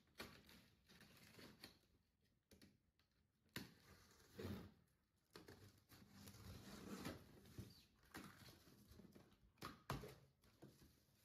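Faint scratching and rustling of a utility knife slitting the packing tape along a cardboard box, with a few sharper clicks and knocks, and the cardboard flaps being pulled open near the end.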